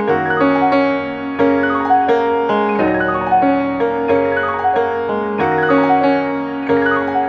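Piano music: an even, flowing run of notes, each struck and left to ring.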